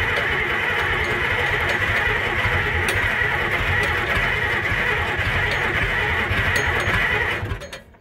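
An old tractor engine running after catching on ether during a cold start, a steady rapid firing beat. About seven and a half seconds in it fades out as the engine dies, so the start does not hold.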